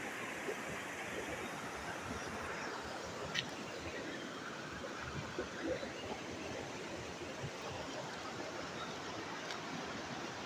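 Steady rush of flowing stream water, with a couple of faint ticks.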